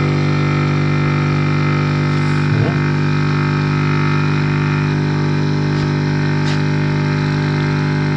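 Small electric transfer pump running with a steady, even hum.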